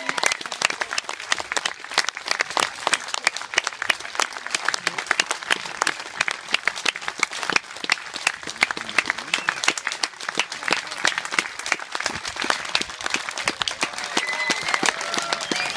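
Spectators applauding: many hands clapping in a dense, steady patter, with a voice or two calling out near the end.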